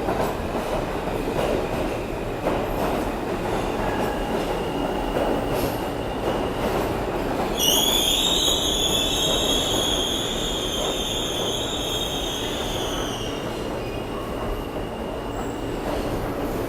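New York City subway train running through a station with a steady rumble. About halfway through, a high-pitched metallic squeal of steel on steel starts suddenly and fades after about six seconds.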